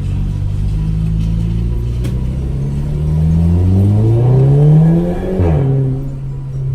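Audi A3's turbocharged four-cylinder TFSI engine through a 2.5-inch straight-piped exhaust with the resonator removed. It drones steadily at first, rises in pitch under acceleration for about two seconds, then drops sharply at an upshift about five seconds in with a brief burst at the shift, and settles back to a steady drone.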